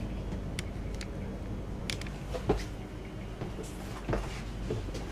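Steady running rumble and low hum inside the passenger saloon of a moving double-deck electric commuter train, with a few faint clicks and knocks.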